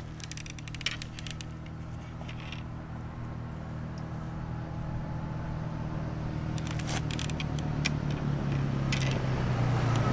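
A low engine drone grows steadily louder as a motor approaches. Light clicks and ticks of fishing tackle being handled come and go over it.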